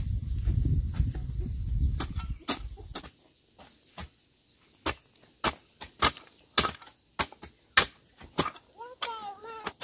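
Sharp chopping strikes of a hand tool cutting through grass, irregular, about one or two a second, over a steady drone of crickets. A low rumble covers the first three seconds, and a short call sounds near the end.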